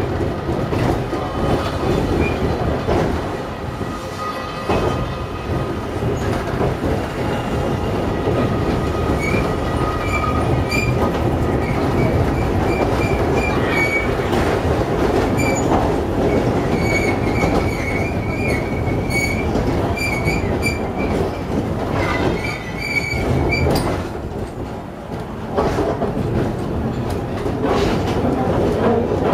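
Myoken Cable funicular car running downhill on its track: a steady rumble of steel wheels on rail with clicks at the rail joints. A high wheel squeal comes and goes from about nine seconds in to about twenty-four seconds in.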